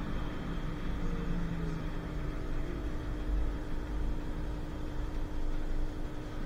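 Historic Basel tram (BVB Be 413) running: a steady low rumble with a constant hum.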